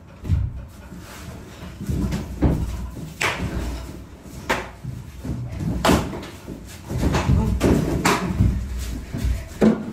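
Irregular sharp knocks and thumps, about seven over the span, from a stick being swung and struck about while people scramble on a hard floor.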